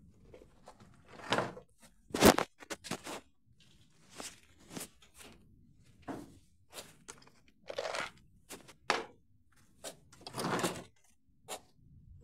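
Irregular thumps, knocks and rustles of a rabbit hutch and its hay bedding being handled, with a sharp knock about two seconds in.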